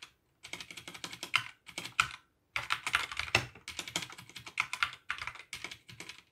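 Typing on an Akko 3084 mechanical keyboard: fast runs of key clacks, broken by brief pauses.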